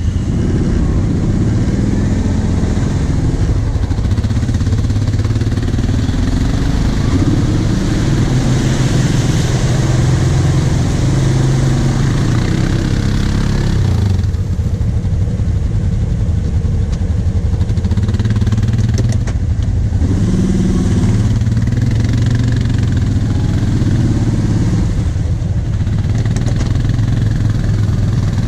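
Quad bike (ATV) engine running while being ridden, the throttle opening and easing off so the engine note swells and drops back several times.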